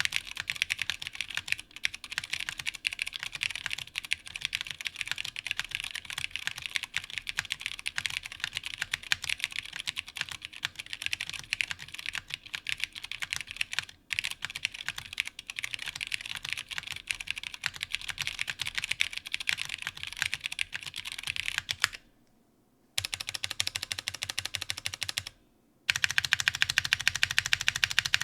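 Fast typing on a custom mechanical keyboard with unlubed stock vintage Cherry MX Brown switches and GMK keycaps on a half FR4 plate: a dense run of key clacks. Near the end the typing stops briefly twice, then comes back as a louder run of evenly spaced keystrokes.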